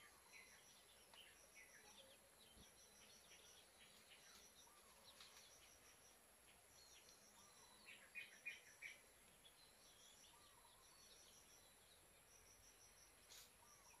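Quiet ambience with faint chirping of small birds and insects: short runs of rapid high ticks recur throughout, with a few louder chirps about eight seconds in.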